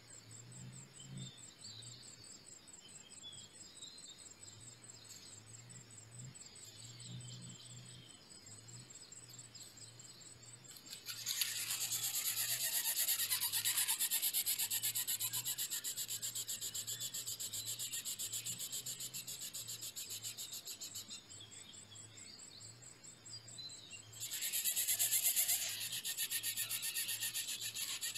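Greater coucal chick giving rapid, rasping begging calls while the adult feeds it. The calls start suddenly about eleven seconds in, fade, and come back loud near the end. Before them a faint, fine high ticking can be heard.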